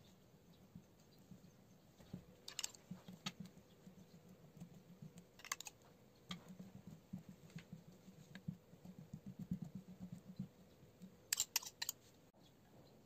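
A table knife spreading thick pizza sauce over raw dough on a metal baking tray: faint, irregular rubbing and smearing strokes, with a few sharp clinks of the knife, a quick cluster of them near the end.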